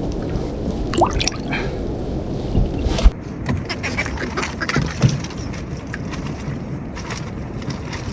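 Rough water rushing and sloshing around a bamboo raft, a steady low rush with scattered knocks and splashes. The loudest is a sharp knock about three seconds in.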